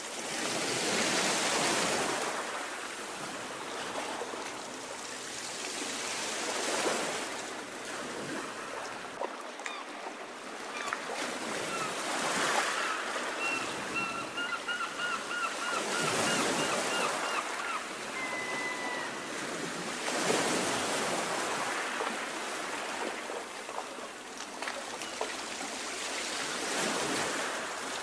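Small waves of a choppy sea lapping and washing at the shore, the wash swelling in surges every few seconds.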